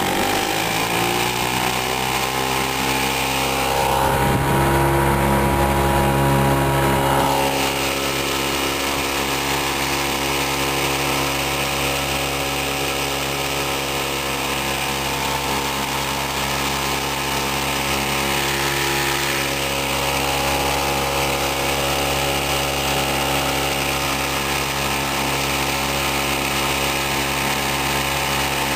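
1971 Evinrude Mate 2 hp two-stroke outboard motor running under way. It revs up in the first second, runs louder and faster for a few seconds, then drops back about seven seconds in to a steady, lower running speed. The motor was freshly fitted with a new cylinder head and a rebuilt carburettor, and the owner says it runs great.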